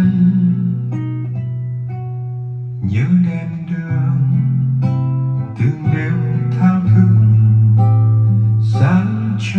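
Instrumental passage of a slow Vietnamese ballad: plucked acoustic guitar notes over long held low bass notes, with no singing.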